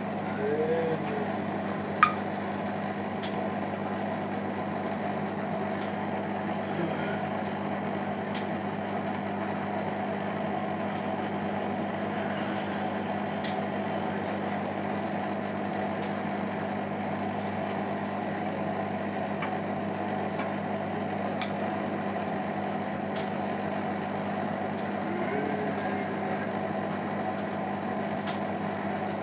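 Beko WMA 1510 washing machine running with a steady, even hum during its final spin. A sharp click about two seconds in and a few faint ticks.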